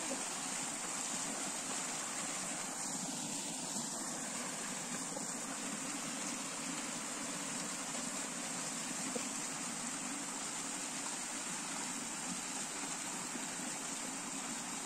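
Fast water running down a narrow cement-lined irrigation channel: a steady, unbroken rush of flowing water.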